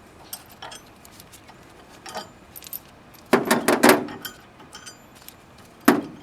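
Metal tools and bolts clinking and clanking as the bolts come off the rear plate of a Kubota BX tractor. There are scattered light clicks, a loud run of clanks about three and a half seconds in and one sharp clank near the end.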